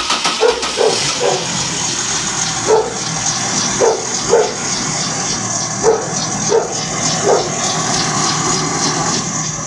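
A car's 1.6-litre engine running in gear with a raised wheel spinning, a steady hum that includes the drone of the wheel hub bearing, which the men take for a worn bearing. A dog barks over it again and again, in short single and paired barks.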